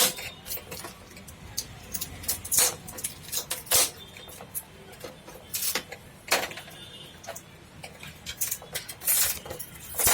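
Irregular clicks, snaps and short scraping noises of LED backlight strips being pulled out of an LED TV's back panel, some of them sharp and loud.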